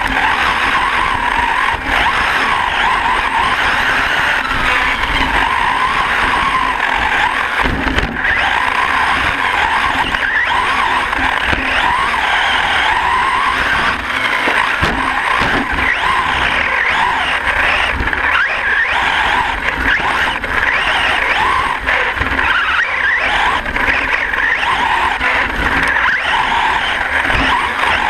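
Onboard sound of a 1/10-scale electric 4x4 short course RC truck with a Castle 3800KV brushless motor, racing on dirt. The motor and drivetrain whine rises and falls with throttle over steady tyre-and-dirt noise.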